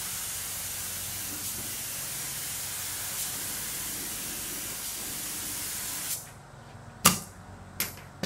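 Compressed-air paint spray gun hissing steadily as it lays a coat of paint on a car body panel, cutting off about six seconds in. A few sharp clicks follow near the end, the first the loudest.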